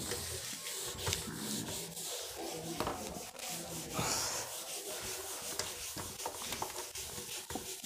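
Someone writing by hand: faint, irregular scratching and rubbing strokes with small ticks.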